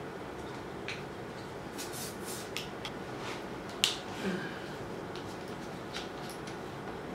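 Scattered small clicks and brief scrapes of a screwdriver and hands working on a motorcycle's handlebar switch housing, with one sharper click a little under four seconds in.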